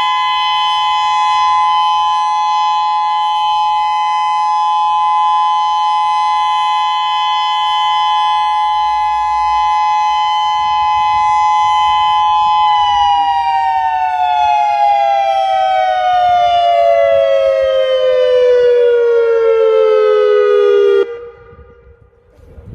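Federal Signal Modulator 6024 outdoor warning siren holding a steady two-note chord, then winding down with steadily falling pitch before cutting off abruptly near the end.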